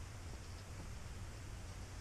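Quiet background: a faint, steady hiss with a low rumble underneath, and no distinct event.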